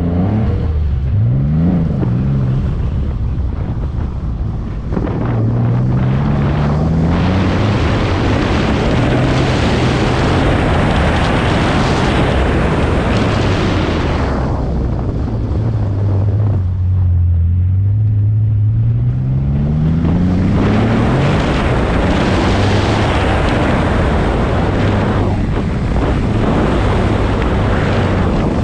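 Twin-turbo Nissan 350z's V6, through a 3-inch true dual exhaust, being driven hard: revving up and dropping back again and again through the gears, over heavy wind and road noise. A little past halfway it falls to a low drone, then climbs steadily back up.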